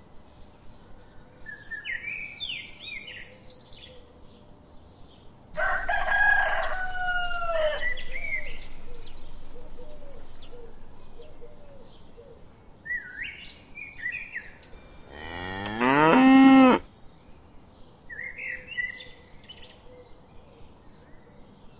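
Farmyard sounds: small birds chirping throughout, a loud animal call with a falling pitch about five and a half seconds in, and a cow mooing with a steeply rising pitch about fifteen seconds in.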